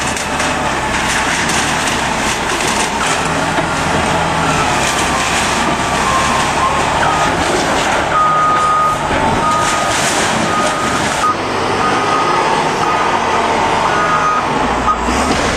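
Wheel loader's diesel engine running under load as it pushes down a wooden house. A high beeping tone sounds on and off through the second half.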